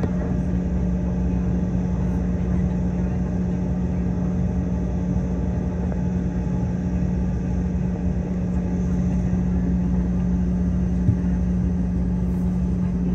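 Steady jet aircraft running noise: a constant low rumble with a strong unbroken hum.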